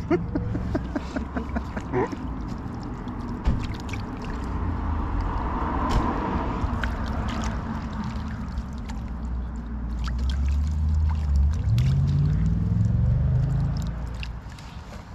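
Water sloshing and gurgling as a mud-caked metal box is dipped and rinsed at the edge of a canal, with small knocks of the box against the bank. Under it runs a low engine rumble that rises in pitch near the end.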